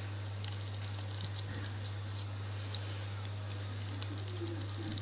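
Faint, scattered light clicks and ticks of small lock parts (the pins and springs of a gutted pin-tumbler cylinder) being handled, over a steady low hum.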